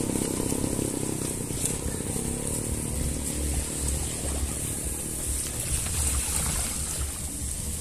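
A passing motorcycle engine fading away over the first few seconds, leaving steady wind rumble and road noise from a bicycle being ridden.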